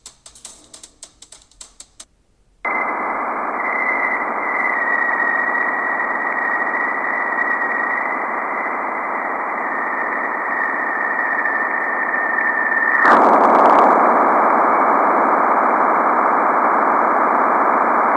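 Juno spacecraft's Waves instrument plasma-wave data converted to sound, opening with a short run of clicks. Then comes a steady hiss with a high whistling tone that drifts slightly lower: the upstream plasma oscillations. About 13 seconds in, the tone stops and the hiss turns suddenly louder as the spacecraft crosses Jupiter's bow shock.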